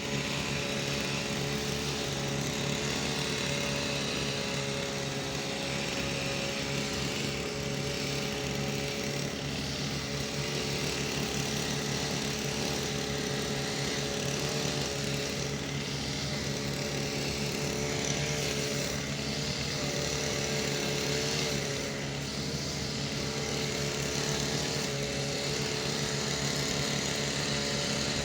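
Small engine of a grass-cutting machine running steadily under load as it cuts grass, with an even, unbroken drone throughout.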